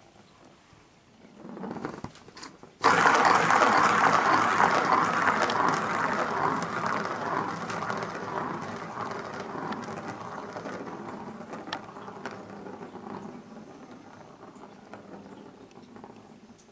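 A ball rolling round the plastic ring track of a circular cardboard-scratcher cat toy. It starts with a sudden rattle about three seconds in, when it is batted, then runs on as a loud rumble that slowly dies away as the ball loses speed. Before that there is a short, softer rattle.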